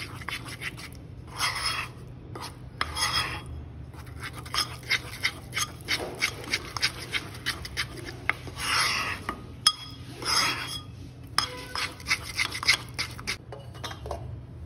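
Steel spoon stirring a thick paste of rice flour and melted ghee in a small metal pan: rapid ticks and clinks of the spoon against the pan, broken by a few longer scraping strokes.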